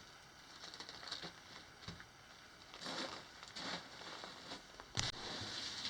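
Faint footsteps scuffing and crunching on loose gravel over hard rock, with a couple of small sharp knocks.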